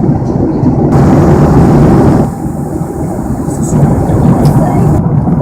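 Steady cabin roar of a Boeing 737-400 in cruise flight, engine and airflow noise as heard from a passenger seat. About a second in it turns brighter and a little louder for just over a second, then eases back.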